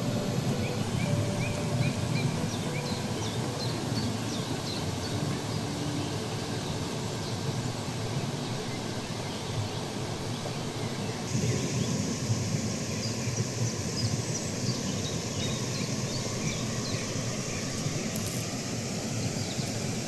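Steady rush of a waterfall, with small birds chirping now and then over it; the hiss turns brighter about halfway through.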